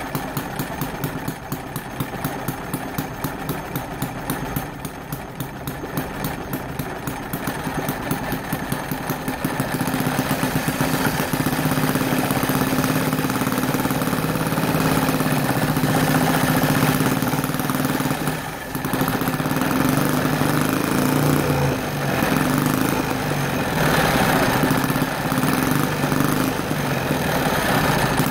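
Homemade 10cc overhead-valve single-cylinder four-stroke engine running on its first run, each firing stroke distinct in the first part. From about ten seconds in it runs louder and fuller, with a piece of wood pressed against the flywheel as a brake to load it, and it dips briefly about two-thirds of the way through.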